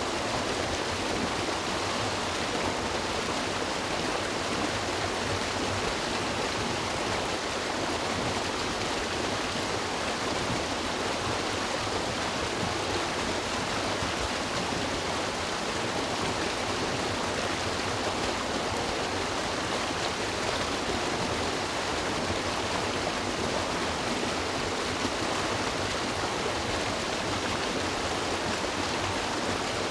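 A river's water rushing and burbling, a steady, even flow with no breaks.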